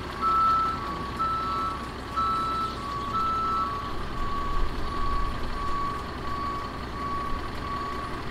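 A truck's reversing alarm beeping steadily over an engine rumble. For the first few seconds a second, slightly higher beep alternates with it, then only the lower beep carries on.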